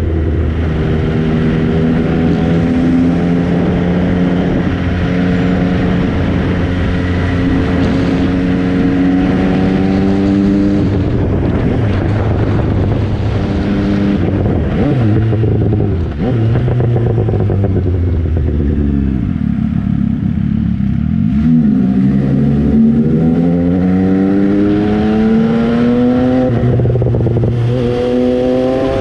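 MV Agusta Brutale 800's three-cylinder engine under way. Its pitch climbs steadily for about ten seconds, drops at a gear change, falls away in the middle as the bike slows, then climbs hard again through two more gears near the end.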